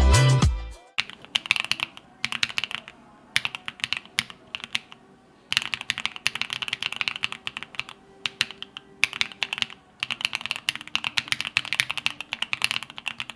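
Wind X98 r2 mechanical keyboard being typed on quickly, rapid key clicks in bursts of one to a few seconds with short pauses between them.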